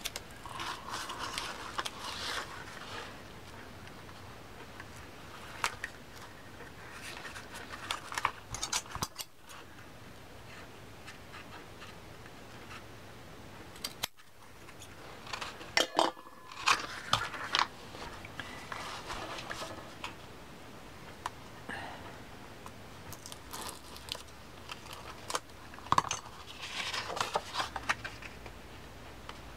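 Paper and double-sided tape being handled on a craft table: scattered rustles of cardstock dividers, tape pulled from its roll, and small clicks and taps as the pieces are pressed into place.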